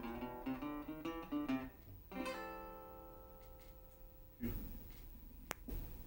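Acoustic guitar music with picked notes, then a final chord about two seconds in that rings out and fades. Near the end there is a short burst of hiss and a sharp click.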